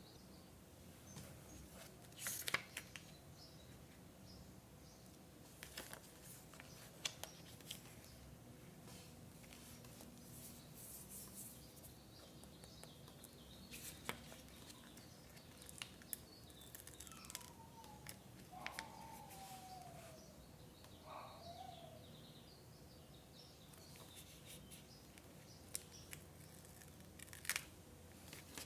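Quiet scrapbooking paper work: scattered soft rustles and clicks of paper and tools being handled, with a low steady hum underneath. About two-thirds through, a short falling call sounds in the background.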